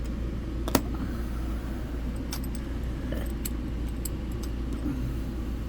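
Small metallic clicks of a hook pick and tension wrench working the pins inside a Master Lock 410 padlock's core, with one sharp click about a second in and a few fainter ticks later, over a steady low hum.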